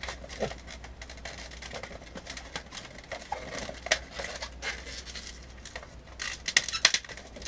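Long latex 260 modelling balloons being twisted and pulled into a loop, rubbing in a run of short, scattered sounds that grow thicker and louder about six seconds in.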